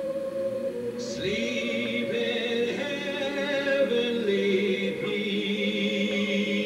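Recorded vocal music playing: singing in long held notes, with a higher part coming in about a second in.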